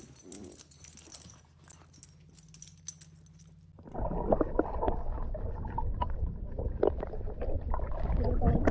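Faint light clicks for the first few seconds, then a sudden switch to loud, muffled water sloshing and gurgling heard from a camera half-submerged at the water's surface, around a swimming dog.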